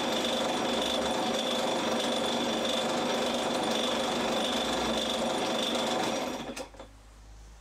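Small metal lathe running steadily with an abrasive pad held against the spinning steel crankshaft journal to polish it. The running dies away about six and a half seconds in.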